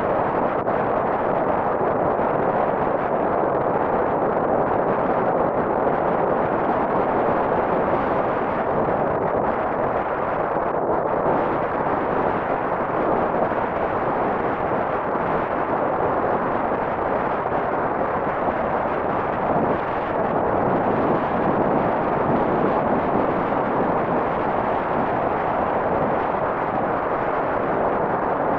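Steady roar of a swollen river's floodwater rushing after a typhoon.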